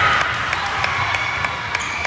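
Spectators at a volleyball match cheering and shouting, with a few sharp clicks among the noise.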